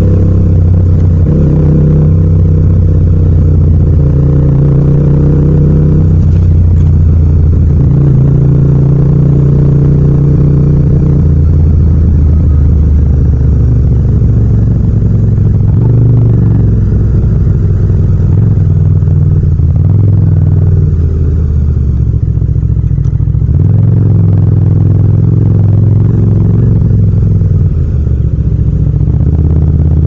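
Yamaha MT-07's 689 cc parallel-twin engine running at low, changing revs while riding in slow traffic. Its pitch steps up and down every few seconds as the throttle opens and closes.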